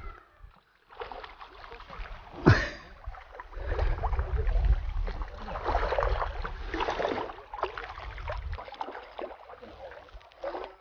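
Hooked silver carp thrashing at the water's surface, a run of irregular splashes and slaps that starts about a second in, with one sharper splash about two and a half seconds in.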